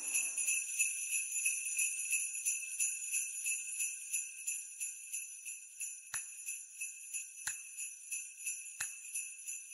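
Sleigh bells (jingle bells) shaken in a steady, quick rhythm, ringing high and bright. From about halfway through, a sharp click comes roughly every second and a half.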